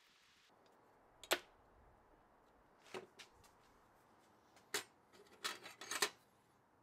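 Sharp metallic clinks and clatters of hand tools being handled and set down, a single loud one about a second in, a couple more around the middle and a quick run of clatters near the end.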